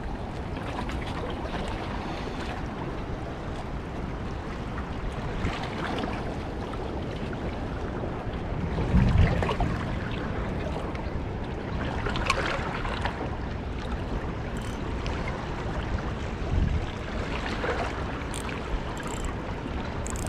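Steady wind and water noise, swelling briefly a few times.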